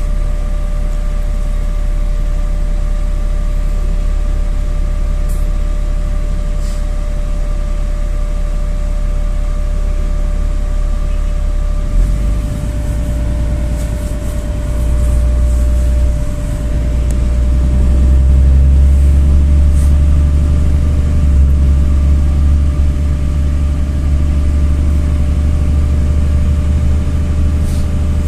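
NefAZ city bus engine heard from inside the passenger cabin, a steady low rumble with a thin steady whine over it. About twelve seconds in, the engine note rises and grows louder as the bus pulls away, and it is loudest from about eighteen seconds on.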